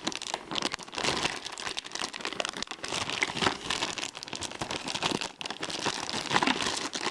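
Plastic packaging crinkling and rustling in the hands as a toy figure is worked out of its bag, with many small crackles throughout.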